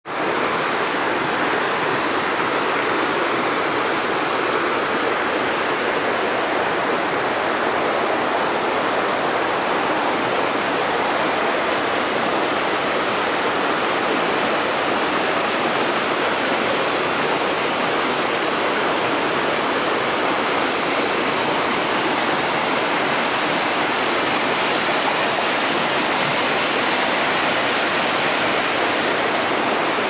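Steady rush of water from a small waterfall and the rocky stream below it.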